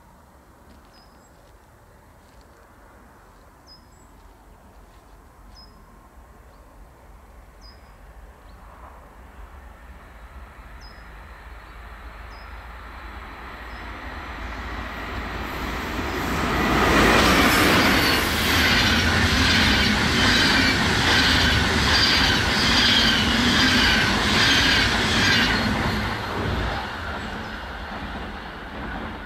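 An SBB IC 2000 double-deck train hauled by an Re 460 electric locomotive passing on a curve: its rumble grows slowly for about sixteen seconds, is loudest for some eight seconds as the locomotive and coaches go by with a high wheel squeal that pulses in a steady rhythm, then dies away.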